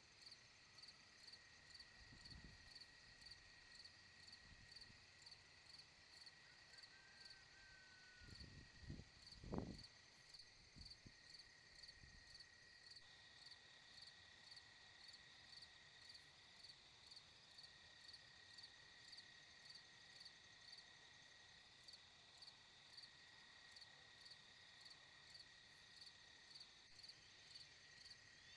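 Faint insect chirping, a regular pulse about twice a second over a steady thin high hum, with a few low thumps around two seconds and again about eight to ten seconds in.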